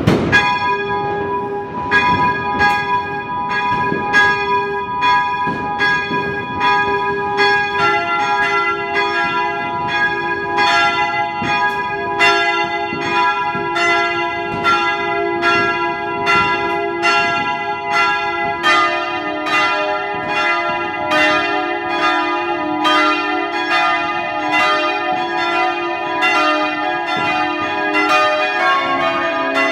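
Swinging church bells of St. Stephan, Karlsruhe, rung for New Year, heard close up inside the bell chamber. One bell's clapper strikes at a steady swinging pace, each stroke ringing on. A second bell joins about a quarter of the way in and a deeper one past halfway, so the strokes crowd into a fuller peal.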